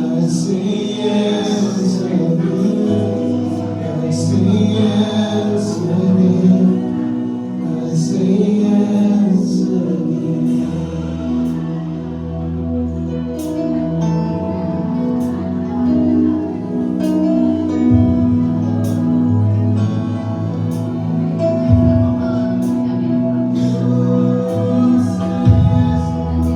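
Live worship band playing a slow gospel song: voices singing held, wordless lines over sustained chords for the first ten seconds or so, then the band plays on instrumentally with a bass line and repeated cymbal hits.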